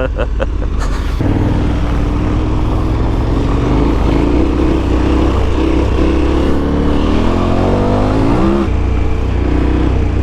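KTM 1290 Super Adventure S's V-twin engine pulling under way; its pitch climbs, then drops sharply at a gear change about eight and a half seconds in, over a steady low rumble.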